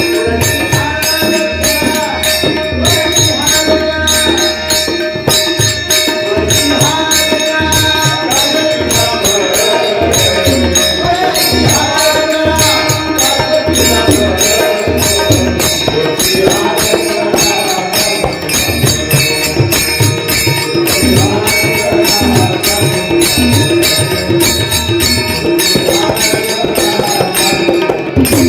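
Warkari devotional song: a male voice sings a gliding melody over tabla, with a fast, steady jingling beat.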